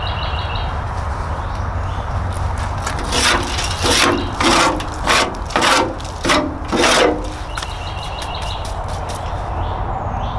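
A hand rubbing and scraping against the side of a rusted metal Civil Defense drinking-water can: about eight scraping strokes, roughly two a second, between three and seven seconds in, over a steady low rumble.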